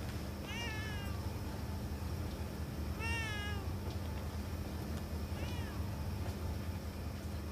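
A newborn baby crying in three short, falling wails a couple of seconds apart, the loudest about three seconds in, over a steady low hum.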